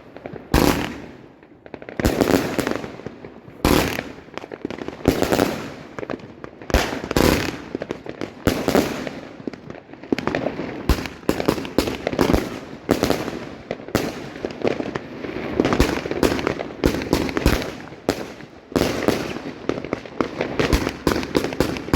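Fireworks bursting: a dense, irregular series of sharp bangs, often several a second, each trailing off in a rumble and crackle.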